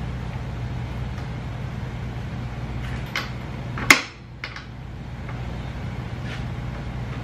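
Steady low hum, broken just before four seconds in by a single sharp metallic clack as the socket of a Milwaukee M12 cordless ratchet goes onto the scooter's shock bolt, with a few lighter taps of tool against metal around it.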